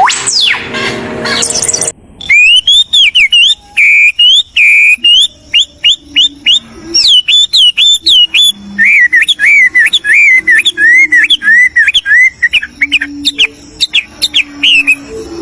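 A songbird singing loudly, a fast string of repeated chirps and whistled notes that rise and fall in pitch. It sets in about two seconds in, after a short falling sweep.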